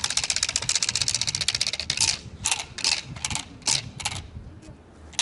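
A decoy's training stick shaken to rattle, a fast dense clatter for about two seconds, then six short separate rattles.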